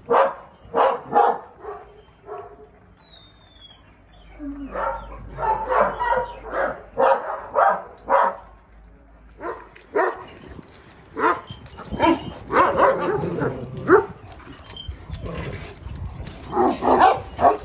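Dogs barking and yipping in quick runs of short barks.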